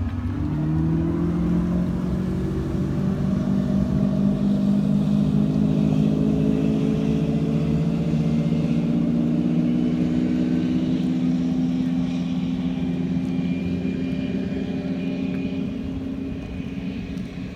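Chaparral motorboat's engine under hard throttle, its pitch rising over the first couple of seconds as the boat speeds off, then holding steady and slowly fading as the boat runs away across the water.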